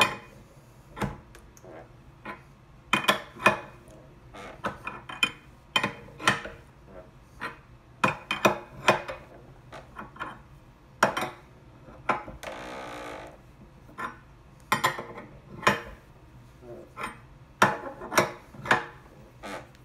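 A steel wrench clinking and clanking irregularly against the hex nuts on threaded tensioning rods as they are turned to stretch the stator's wire loops, with a short scraping rasp about twelve seconds in.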